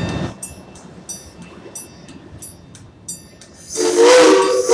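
A steam locomotive's Crosby three-chime whistle sounding a loud, steady chord, starting near the end. Before it, a bell rings in even strokes about every 0.7 seconds.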